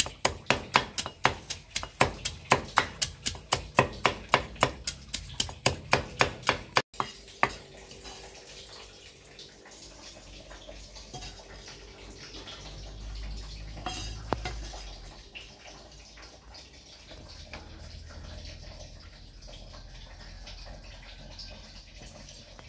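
Cleaver mincing lemongrass on a round wooden chopping board, with rapid even chops about four a second. The chopping stops about seven seconds in, leaving a faint low rumble with a few light knocks.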